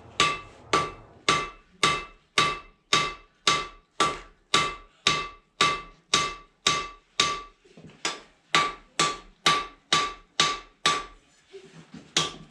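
Blacksmith's hand hammer striking hot metal on an anvil, about two steady blows a second, each blow ringing. The blows stop about a second before the end, and a few quicker, lighter taps follow.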